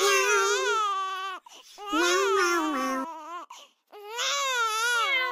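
Crying in a high voice: three long cries with wavering pitch, each lasting a second or more, with short breaks between them.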